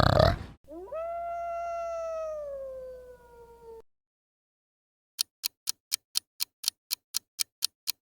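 A coyote howls once: one long call that rises quickly and then slides slowly down for about three seconds. After a pause, a countdown clock ticks about four times a second.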